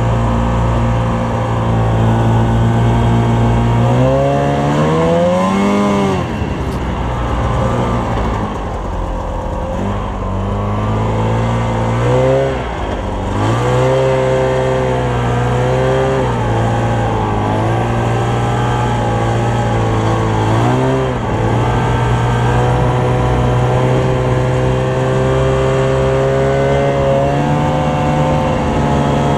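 Snowmobile engine running under way across snow. It revs up and eases back several times, rising in pitch about four seconds in and again a few more times, then holds a steady, slightly higher note near the end.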